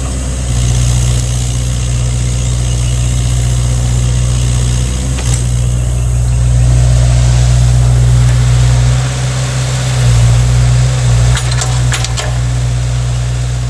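An engine running steadily with a low hum, with a few light clicks near the end.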